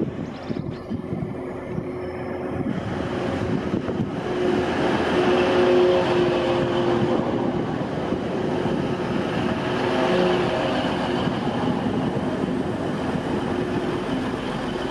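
TransPennine Express Class 185 diesel multiple unit running slowly into the platform and past close by: its engine and wheels on the rails, growing about four seconds in and loudest around six seconds.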